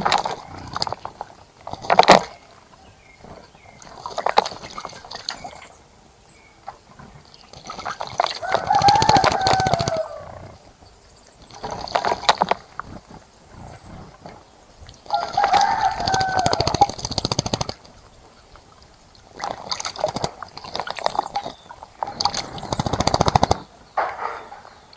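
Repeated short bursts of splashing from birds bathing in a bird bath, each a second or two of rapid water spray. A rooster crows twice, about eight and fifteen seconds in.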